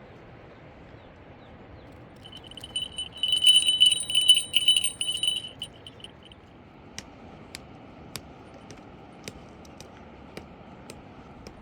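A small metal bell jingling rapidly for about three seconds, starting about two seconds in, followed by a few scattered sharp clicks.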